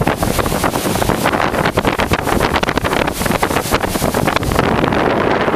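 Thunderstorm rain and gusting wind buffeting the microphone: a dense, loud crackle of drops that settles into a steadier rush near the end.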